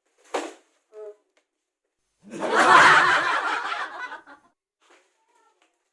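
A brief sharp noise, then a person laughing loudly for about two seconds.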